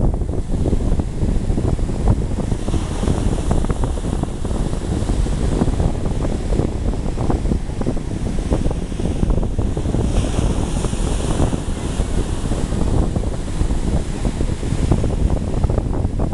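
Strong wind buffeting the microphone over the rush of surf, with waves surging up in a louder hiss twice, about three seconds in and again around ten seconds in.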